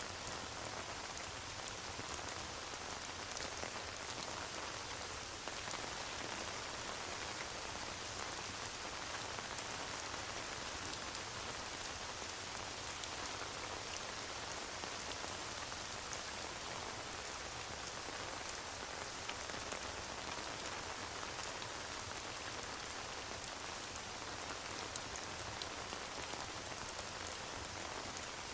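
Steady rain: a constant, even patter with scattered small ticks of drops.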